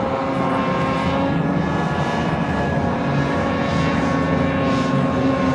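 Several racing boat engines running at high revs at once, a steady drone of overlapping engine notes at slightly different pitches.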